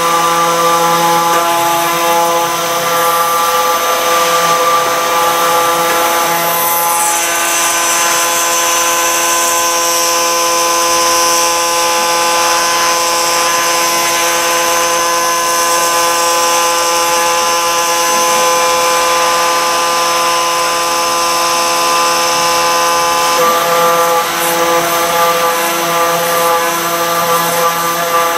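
CNC router spindle running steadily as it cuts wet stone, a loud machine sound with several steady tones. A thin high whistle drops in pitch about seven seconds in, holds, and cuts off about five seconds before the end.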